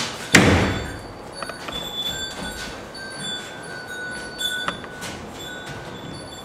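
A stage door banged shut: one loud thump that rings out for about a second. Faint steady high tones and a few light clicks follow.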